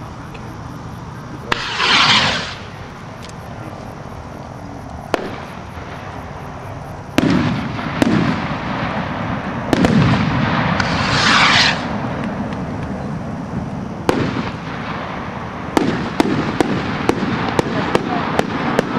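Hand-made skyrockets firing: two long hissing whooshes of rockets going up, about 2 s and 11 s in, with sharp bangs and low rumbles as shells burst overhead. From about 16 s on comes a rapid run of sharp crackling pops, two or three a second.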